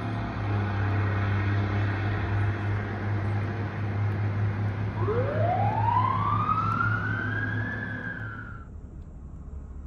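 A fire truck's siren winds up in pitch over about three seconds, levels off and begins to fall, then cuts off suddenly, over a low steady rumble of the vehicle.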